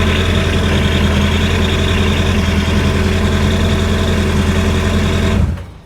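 Yamaha WaveRunner engine idling steadily, then stopping abruptly near the end.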